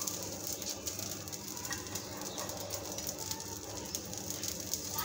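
Dosa cooking on a hot tawa, giving a quiet steady sizzle with faint scattered crackles.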